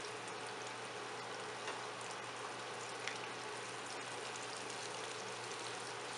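Flour-coated chicken pieces deep-frying in hot oil: a steady sizzle of bubbling oil, with a couple of faint crackles.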